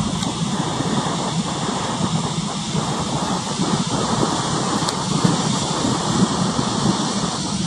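Coastal ambience in choppy weather: steady rushing wind and sea noise over a continuous low rumble.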